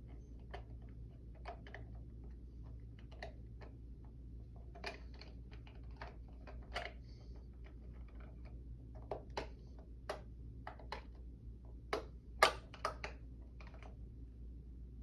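Irregular plastic clicks from buttons and switches being worked on a radio-controlled analog alarm clock as its time zone is set, the loudest near the end. A steady low hum runs underneath.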